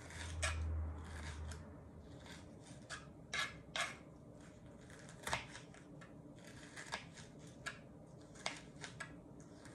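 A kitchen knife slicing a small green hot pepper on a plastic cutting board: irregular short taps of the blade on the board, spaced a second or so apart. A low hum runs through the first second and a half.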